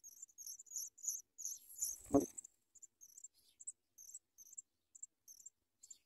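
Pipit nestlings giving rapid, high-pitched begging cheeps, a few short chirps a second, crowding together around two seconds in. A single dull thump about two seconds in is the loudest sound.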